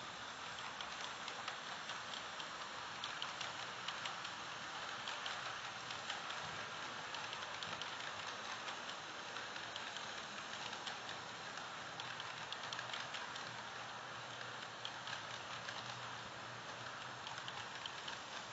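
Kato N scale model freight trains running on Unitrack: a steady, quiet hiss of small wheels and motors laced with many fine, rapid clicks.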